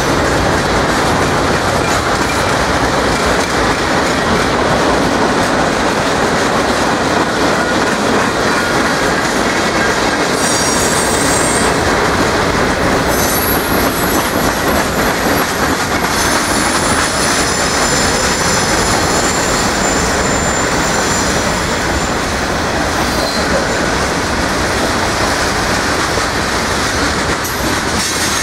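Freight cars of a Norfolk Southern manifest train rolling past close by, a steady, loud noise of steel wheels on rail. About ten seconds in, high-pitched metallic squealing from the wheels sets in and lasts around ten seconds.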